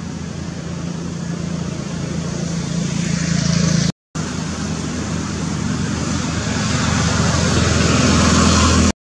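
Engine hum of passing motor traffic: a steady low drone under road noise that grows louder over a few seconds. It breaks off abruptly about four seconds in and then builds again.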